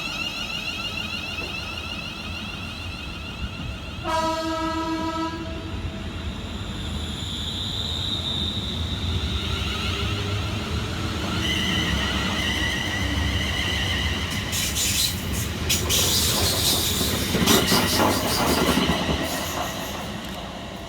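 Two coupled Class 350 Desiro electric multiple units pulling away from a station. A short single-note horn sounds about four seconds in. The traction motors whine, rising in pitch as the units accelerate, and the wheels clatter and squeal over the rails, loudest about fifteen to nineteen seconds in.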